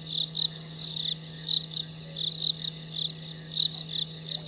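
Frogs calling in chorus: short, high-pitched notes repeating in quick overlapping groups, over a steady low hum.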